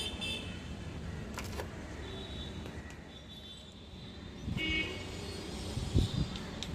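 Street traffic rumbling with a few short car-horn toots, the clearest a little past the middle, and a soft low thump near the end.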